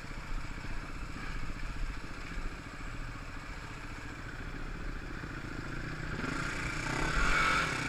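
Enduro dirt bike engine running under throttle on a rough trail, with the revs and loudness rising near the end.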